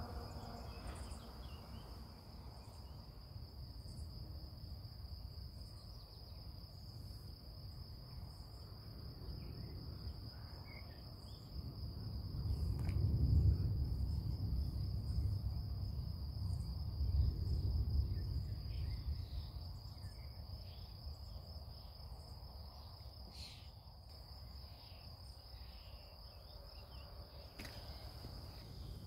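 Distant thunder rumbling low, swelling twice around the middle, over a steady high trill of crickets.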